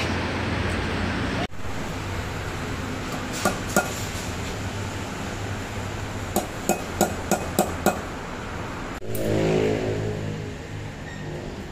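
Hammer blows on a steel drift set in the hub of a VW Kombi's front brake disc, knocking out a wheel bearing race: sharp ringing metal strikes, two about three seconds in and then a quick run of six at about three a second. A steady workshop background runs underneath, and a vehicle-like rumble swells near the end.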